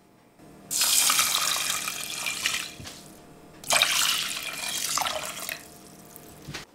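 Water poured from a small cup onto dry brown rice in a stainless steel pot, in two pours of about two seconds each with a short break between.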